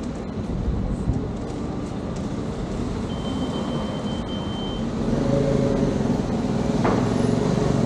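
Steady motor-vehicle road noise that gets louder about five seconds in, with a thin high tone lasting about a second and a half midway through.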